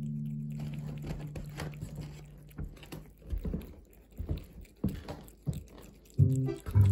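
Cat eating wet cat food up close: irregular wet smacking and chewing clicks. A held guitar chord fades out over the first few seconds, and about six seconds in, music with a pulsing bass line starts.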